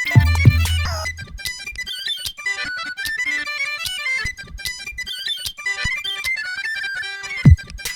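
Music: a fast melody of quick stepping notes, with a few deep low thumps under it near the start and again near the end.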